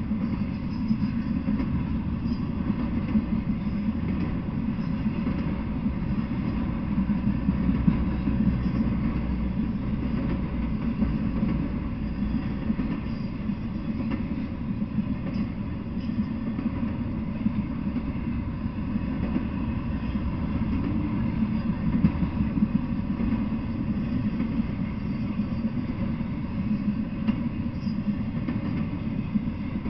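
Intermodal freight train of trailer and container cars rolling steadily past: a continuous low rumble of steel wheels on the rails, with occasional small clicks.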